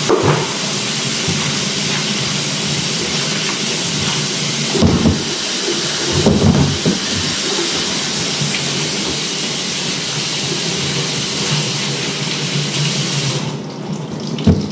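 Tap water running steadily onto a large woven bamboo tray as it is rinsed and scrubbed by hand in a sink, with a few knocks as the tray is shifted and tilted. The water is shut off a little before the end, followed by one sharp knock.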